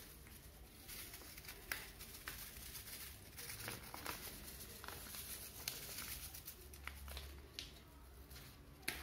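Faint rustling of cocoa powder being sifted through a small metal mesh sieve as it is shaken and rubbed, with a few light clicking taps.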